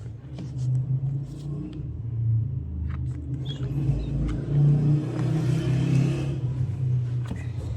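A running engine's low, steady rumble, with a few light clicks.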